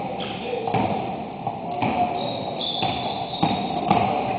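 A basketball bouncing and players' feet thudding on a hardwood gym floor, with a sharp knock every half second or so, echoing in a large hall. A high sneaker squeak runs from about two seconds in for over a second.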